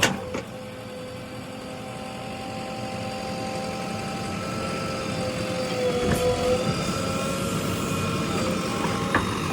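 JCB 3DX backhoe loader's diesel engine running steadily under load while it digs, its pitch dipping briefly about two-thirds of the way in. A sharp knock at the start.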